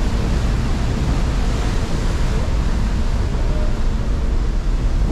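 Wind buffeting the microphone over a steady rush of sea and a low rumble from the ferry.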